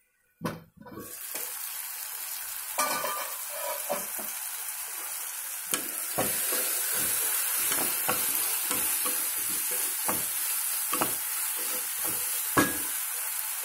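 Chopped tomatoes with garlic, chillies and curry leaves sizzling in oil in a nonstick kadai, stirred with a spatula that scrapes against the pan about once a second, one stroke louder near the end. The sizzle starts about a second in. The tomatoes have softened and cooked down.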